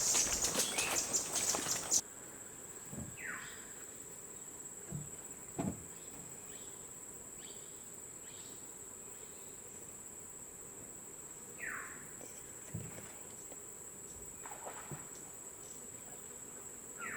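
Footsteps crunching for the first two seconds, then cut off abruptly. After that a steady, high-pitched insect drone, with a bird call falling in pitch twice and a few faint knocks.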